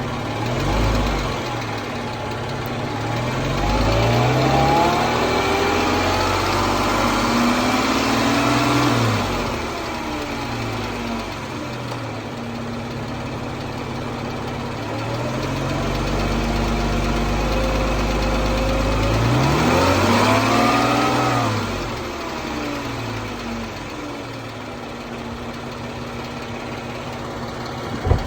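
2014 Jeep Wrangler's 3.6-litre Pentastar V6 running at idle and revved up twice, each time climbing over a few seconds and dropping back to idle. The owner is chasing a ticking noise from this engine that he suspects is rocker arm or valve tick. A sharp click right at the end.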